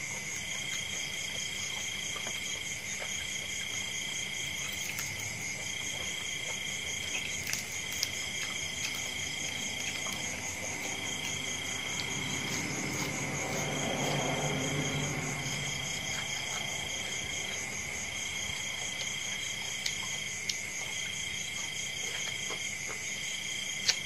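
Crickets chirping in a steady chorus: one high trill switches on and off every couple of seconds over a constant high drone. About halfway through a low rumbling sound swells and fades, and a few faint clicks stand out.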